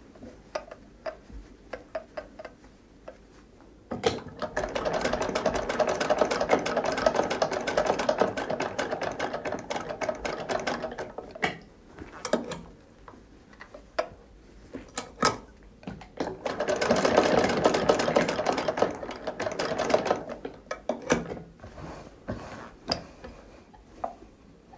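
Hand-operated sewing machine stitching in two short runs: one starts abruptly about four seconds in and lasts about seven seconds, the other lasts about three seconds. Between and after the runs the mechanism gives scattered clicks and ticks.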